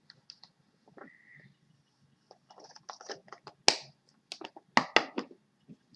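A quick run of sharp clicks and taps, sparse at first and then dense in the second half, with a brief faint squeak about a second in.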